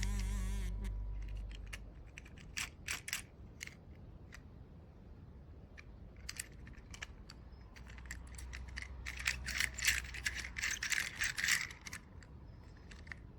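Scattered light clicks and rattles of small hard objects being handled, thickening into a quick clattering run about two-thirds of the way through, after background music fades out at the start.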